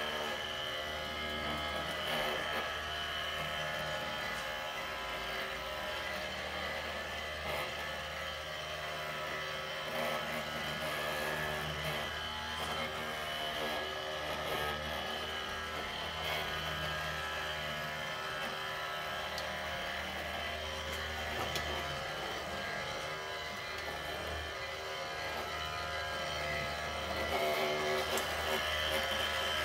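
Radio-controlled model construction machinery running steadily: a constant motor hum with a high whine and no pauses.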